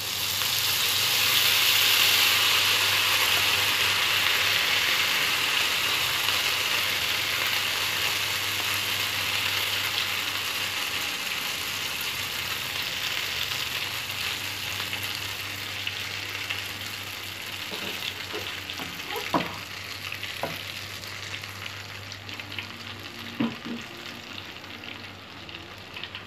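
Whipped egg-and-rice batter foam deep-frying in a pan of hot oil: a loud sizzle that swells as the foam spreads in the oil, peaks about two seconds in, then slowly dies down. A few sharp clicks sound near the end.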